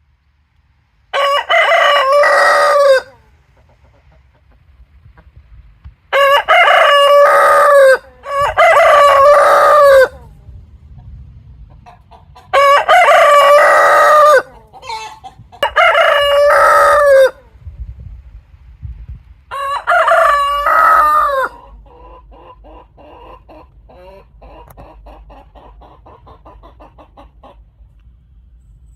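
Roosters crowing: six long cock-a-doodle-doo crows a few seconds apart, then several seconds of softer, rapid clucking.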